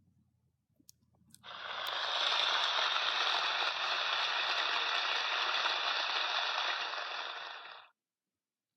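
Recorded rain sound effect from a children's sound book's speaker: steady rain noise that fades in about a second and a half in and stops about a second before the end. A faint click or two comes just before it starts.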